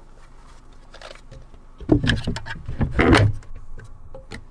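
Handling noise of a plastic battery pack and its compartment: a run of clicks, knocks and scraping, loudest from about two to three and a half seconds in.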